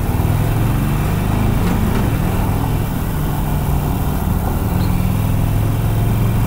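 Harley-Davidson Sportster Iron 883's air-cooled V-twin running steadily while the bike cruises down a street, with wind noise on the microphone.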